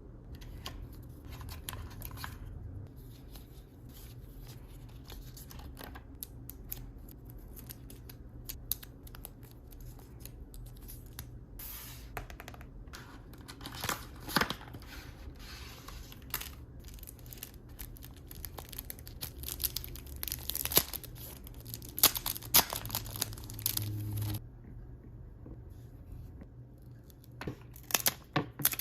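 Packaging of an iPhone 14 Pro box being torn open, peeled and handled: scratchy tearing and crinkling with many sharp clicks and taps. It grows busier and louder for about twelve seconds around the middle, then thins out to a few sharp clicks near the end.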